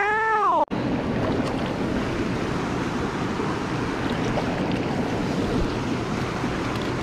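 Steady rush of flowing creek water over rocks. In the first moment a short voice-like sound rises and falls in pitch, then is cut off abruptly.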